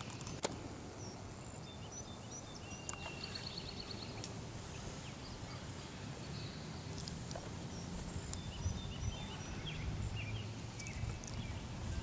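Several small birds chirping and trilling on and off, over a steady low rumble, with one sharp click about half a second in.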